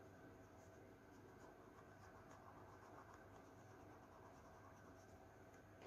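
Faint scratching of yellow colour being stroked onto paper over the grass of a drawing, over a low steady room hum.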